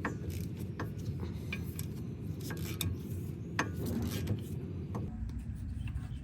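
Irregular light metallic clicks and clinks from hand tools working the rear brake caliper bolts as they are backed out, over a steady low background rumble.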